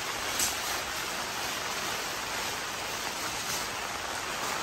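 Heavy rain falling steadily, an even hiss, with one small tap about half a second in.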